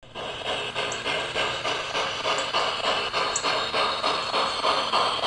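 G-scale model steam locomotive's chuffing sound, a steady rhythm of about four chuffs a second, as the Aristo-Craft freight train runs around the track. A few brief, faint high squeaks sound over it.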